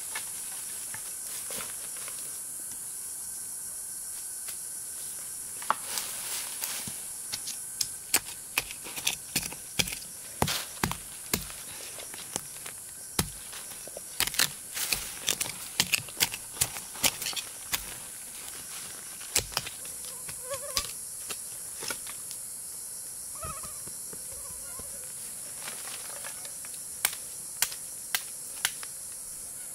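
Steady high-pitched insect drone. Many sharp, irregular clicks and knocks from hands-on work sound over it, thickest in the middle and again near the end.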